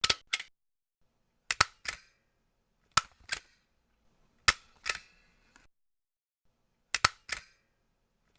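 Desk stapler pressed down repeatedly, about one press every one and a half seconds: each press is a sharp snap followed a fraction of a second later by a second click as the stapler closes and springs back.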